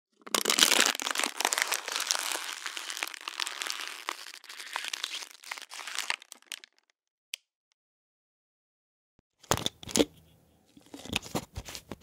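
Thin plastic water bottle crinkling and crackling as it is handled, loud at first and fading over about six seconds. A single click follows. After a pause, a few sharp cracks and more crinkling come near the end.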